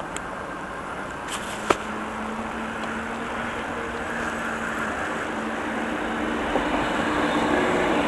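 Car driving, with steady engine and road noise heard from inside the cabin that grows gradually louder, a low hum stepping up in pitch later on. There is a single sharp click about a second and a half in.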